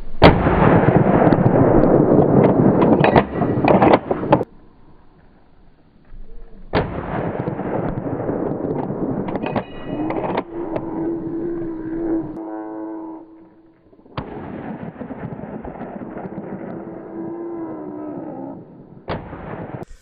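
Hunting gunshots: a few sharp reports spread through, each followed by several seconds of loud rough noise, with a steady mid-pitched tone sounding in the middle.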